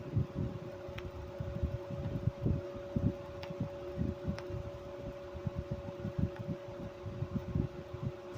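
1995 Chambers (Whirlpool) 5000 BTU window air conditioner running, its fan and compressor giving a steady two-tone hum. Irregular low rumbling from the airflow buffets the microphone.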